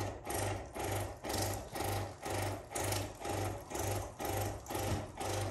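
Waterpik countertop water flosser running in massage mode: the pump's hum and the water jet pulse on and off in a steady rhythm, about two pulses a second, as the jet sprays between teeth and gums.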